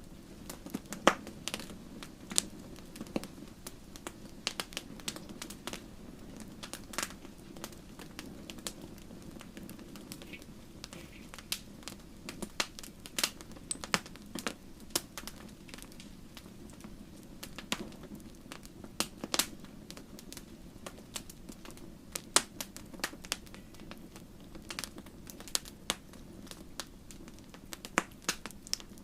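Wood fire crackling in a fireplace: irregular sharp pops and snaps over a steady low hiss of burning.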